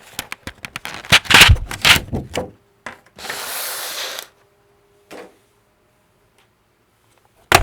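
Plastic keycaps and a Happy Hacking Keyboard being handled: a quick run of clicks and clatters, then a rustle lasting about a second. A single sharp click comes near the end.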